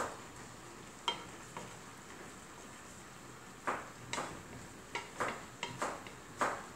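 Wooden spatula stirring a simmering clam-and-greens dish in an aluminium pan, with a string of short scrapes against the pan, most of them in the second half, over a low steady sizzle.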